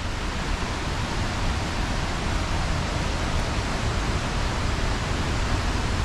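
Steady rushing noise of falling water: an even hiss over a low rumble.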